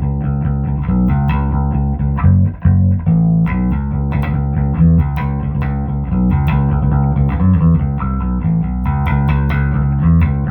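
Electric bass guitar with Seymour Duncan Quarter Pound J-bass pickups played through a Trace Elliot bass amp and cabinet, pre-shape engaged with light compression and no effects: a continuous run of plucked bass notes, with a short break about two and a half seconds in.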